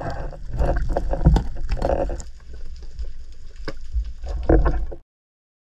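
Muffled underwater noise from a spearfisher's dive: irregular knocks and clicks over a low rumble of water. It cuts off abruptly about five seconds in.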